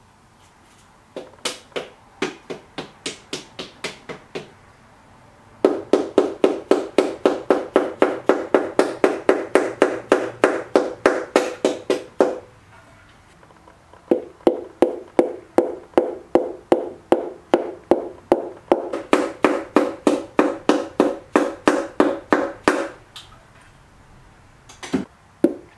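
Quick repeated taps of an orange mallet on a piston top, driving the ringed piston through a ring compressor into a cylinder bore of a Subaru STI turbo engine block. The taps come in runs of about four to five a second, each with a short metallic ring, with brief pauses between runs.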